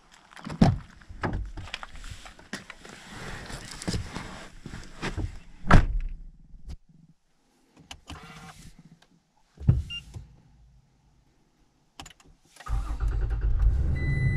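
Knocks and clicks of someone getting into a Toyota pickup, a loud clunk like a door shutting near ten seconds in, then the engine starting and running with a steady low rumble, and a dashboard chime beeping near the end.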